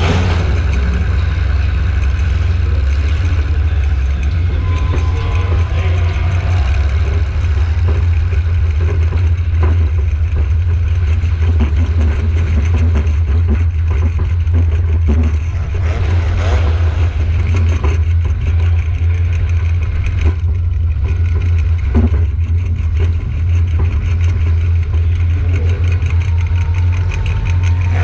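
Demolition derby car's engine running loud and steady, heard from inside the car, a deep rumble with a few short knocks along the way.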